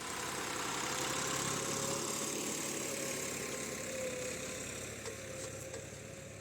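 An engine running steadily, getting gradually quieter over the last few seconds.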